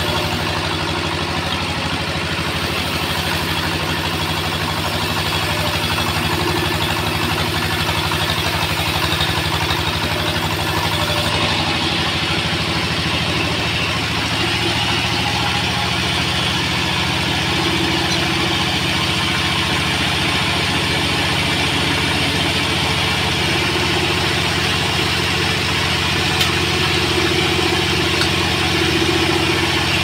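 Homemade bandsaw sawmill running steadily: the drive's even mechanical drone, with the blade ripping a weru log into boards.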